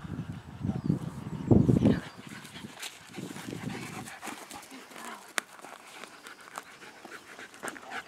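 A Labrador cross dog panting as she runs, with low rumbling thuds during the first two seconds and a few faint clicks later on.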